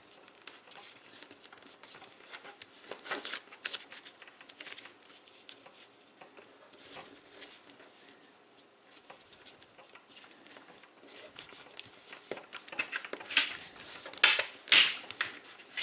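A sheet of paper rustling and crinkling as it is folded and creased by hand, fingers sliding and pressing along the folds, in short scattered scrapes with a louder cluster near the end.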